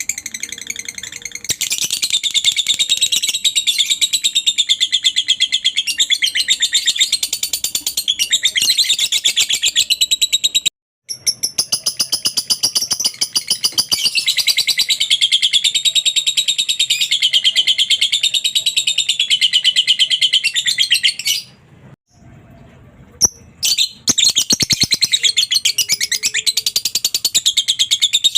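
Lovebird in long 'ngekek' chattering song: a rapid, high-pitched run of many notes a second, held for long stretches. It breaks off briefly about eleven seconds in and pauses for about two seconds a little after twenty seconds before starting again.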